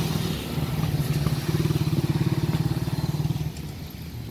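A small engine running with a rapid, even pulse, louder through the middle and falling away about three and a half seconds in.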